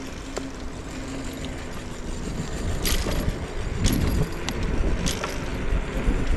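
Scooter ride through city streets: road and wind rumble builds up from about halfway in, with several sharp clicks, and a steady low hum in the first two seconds.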